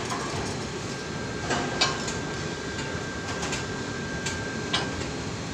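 Four sharp metallic clinks in two pairs as steel tools and tower-crane climbing-frame parts are knocked together, over steady background noise.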